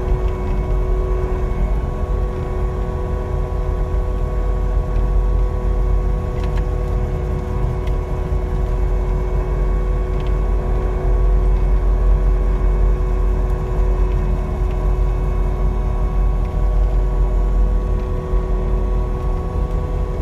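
Caterpillar 299D3 compact track loader's diesel engine running steadily under load, a heavy low rumble with a steady whine of several tones over it.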